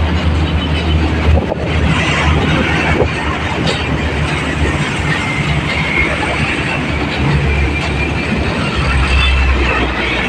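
Heavy truck in motion, heard from its load bed: a steady low engine drone with road rumble and the noise of the chained load, rising and easing a little as it drives.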